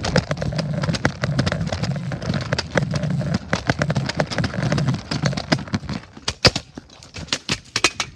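Scooter rolling over pavement: a steady low rumble with many sharp rattling clicks. The rumble drops away about six seconds in, leaving scattered clicks.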